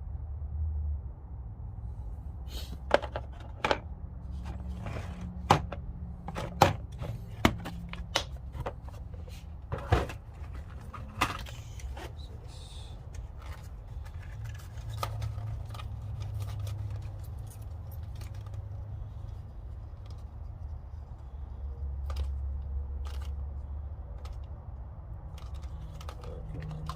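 Hand tools and packaging being handled: a series of sharp clicks and taps, most of them in the first half, over a steady low hum.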